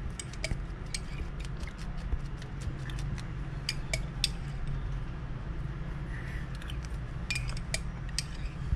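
Irregular light clicks and clinks of a spoon against a white jug, a few a second, loudest around the middle and near the end, over a steady low hum.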